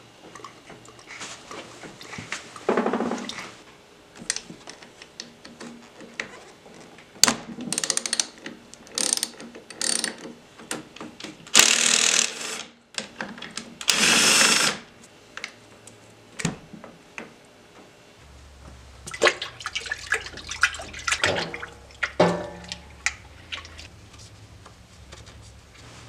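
Metal tools clicking and clanking on motorcycle brake parts, then two short runs of a cordless drill driver undoing the master cylinder clamp screws. In the last third, a parts washer pump hums steadily while solvent splashes as parts are scrubbed in it.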